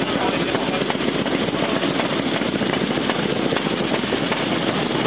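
Čechie-Böhmerland vintage motorcycle's single-cylinder engine running steadily at idle, a fast even beat with no revving.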